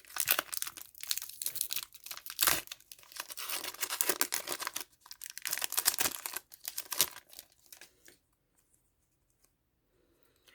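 A My Little Pony collectible card pack's wrapper being torn open and crinkled, with sharp rustling and tearing that stops about eight seconds in.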